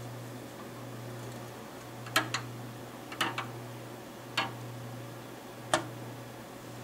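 Lenco L75 idler-drive turntable running, with a steady low hum and a handful of sharp clicks at irregular intervals.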